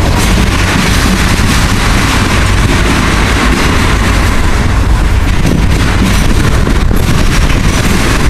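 Freight train passing close by: a loud, steady rumble and rolling noise from the train, with wind buffeting the microphone.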